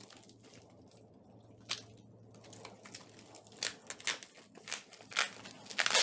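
Plastic mailing bag being handled and cut open with a utility knife: crinkling and rustling in short sharp bursts, sparse at first and busier in the second half, loudest near the end.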